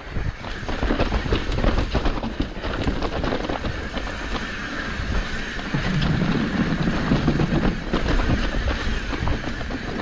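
Hardtail mountain bike clattering down a rough trail: a dense, continuous rattle of many small knocks from the bike over the rumble of the tyres on the dirt.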